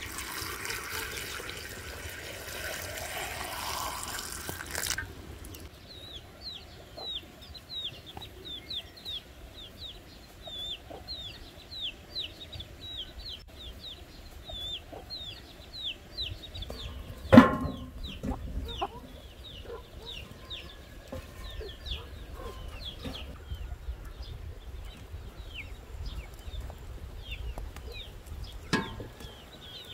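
Water poured into large glass jars of cherries and sugar, the pitch rising as a jar fills, cut off about five seconds in. Then farmyard chickens clucking under a steady run of short, high, falling bird chirps, with one loud sharp knock a little past halfway and a smaller one near the end.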